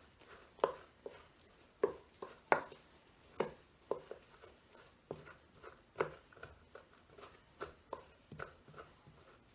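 A big spoon stirring a crumbly oatmeal, flour, brown sugar and butter mixture in a stainless steel mixing bowl, knocking and scraping against the bowl with a couple of short knocks each second.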